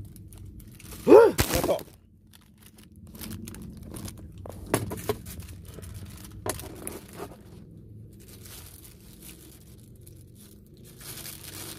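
Thin plastic bags crinkling and rustling as they are handled, with scattered small sharp clicks. About a second in, one brief loud vocal exclamation.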